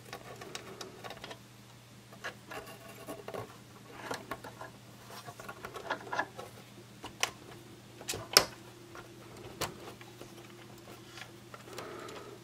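Small clicks, taps and light scraping of a circuit board being worked down onto its multi-pin connectors inside a Drake TR7 transceiver's metal chassis, with one sharper click a little past the middle. A faint steady hum runs underneath.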